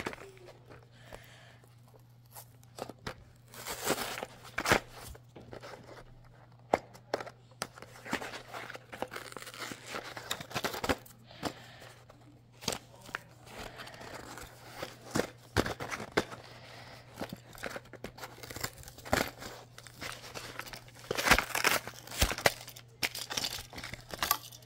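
Cardboard backing of a toy blister pack being torn and scraped off by hand, in many short irregular rips and scratches.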